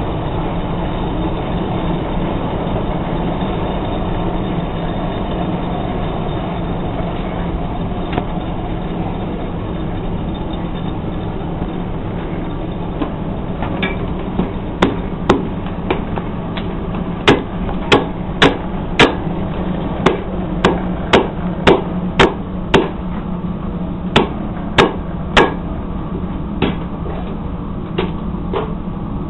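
Hammer blows ringing on a piece of meteorite iron being forged on an anvil into knife bar stock. They start about halfway through as some twenty sharp strikes at roughly two a second, in short runs with brief pauses, over a steady background noise.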